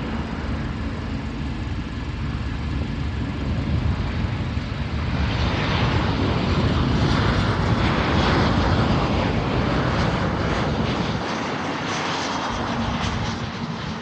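A Delta jet airliner passing overhead: its engine noise swells from about five seconds in, is loudest a few seconds later, then fades away, over a steady low rumble.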